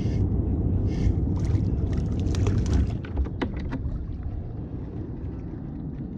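Water splashing as a hooked fish is lifted out of the water onto a kayak, followed by a few sharp knocks and clicks, over a steady wind rumble on the microphone.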